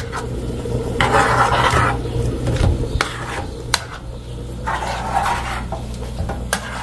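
Metal spoon stirring and scraping minced liver in a non-stick frying pan, with a few sharp clicks of the spoon against the pan. The liver is cooking in its own juices over low heat, with no water added.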